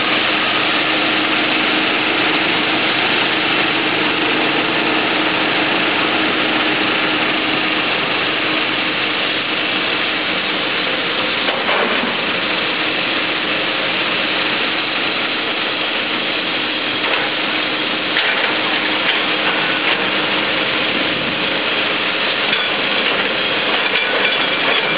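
Diesel engines of heavy earth-moving machinery running steadily, with a few brief knocks partway through.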